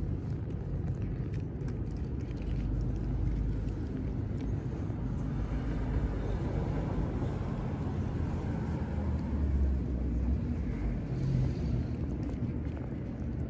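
Steady low rumble of road traffic, swelling about halfway through as a vehicle passes, with faint clicks of cats chewing and licking wet food.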